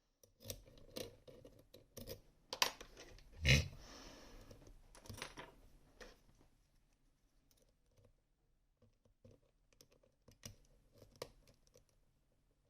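Small metal clicks and taps of a DOM RS Sirius lock cylinder and its picking tools being handled and worked. The clicks are busiest in the first half, with one louder knock about three and a half seconds in, and grow sparser later.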